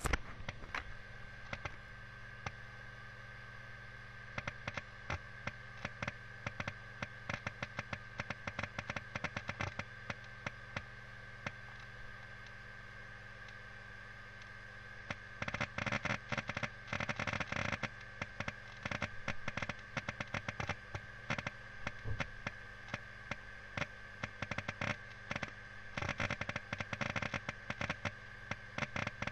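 LaCie 500 GB 3.5-inch external hard disk working through a large file copy: rapid, irregular clicking and crackling like firecrackers over a steady whine and hum. About halfway through, the clicking gets much denser.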